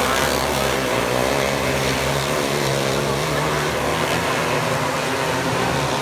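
A pack of winged outlaw karts racing, many engines running together in a steady blend.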